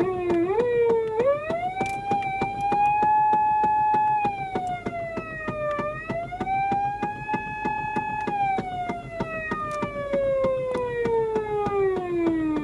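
Electronic police-style wail siren from a Patlite SAP500BK siren amplifier driving a 50 W Osaka Siren speaker. The pitch climbs in steps, holds high, dips and climbs again, then falls slowly over the last few seconds.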